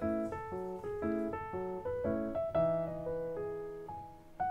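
Background music: a gentle solo piano tune, single notes and chords struck a few times a second, each fading away.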